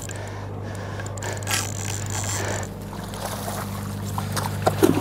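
A boat's engine gives a steady low hum. Scattered clicks and knocks sound over it, with a short swell of noise about a second and a half in and a few sharp knocks near the end.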